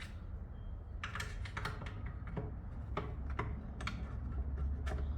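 Small sharp clicks and taps at an irregular pace as a small drawer lock and its key are handled and fitted, over a steady low hum.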